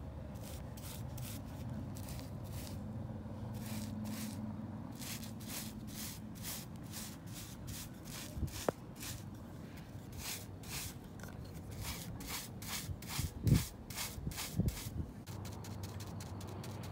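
Paintbrush bristles scrubbing paint onto rough concrete: a run of short, even, scratchy strokes at about three a second. Two dull low thuds come about three-quarters of the way through.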